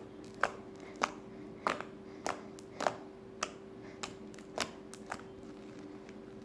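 Fluffy slime being squeezed and worked by hand, its trapped air popping in sharp clicks about every half second, nine or so in a row, stopping about five seconds in.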